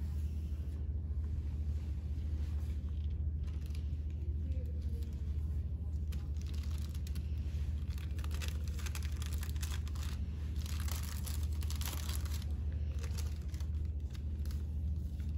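Paper wrapper of a sterile glove pack crinkling and rustling as it is handled and unfolded, busiest for a few seconds past the middle, over a steady low hum.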